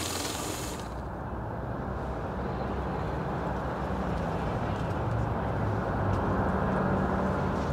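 Street ambience with a steady traffic rumble, dull and muffled, with no sharp sounds standing out.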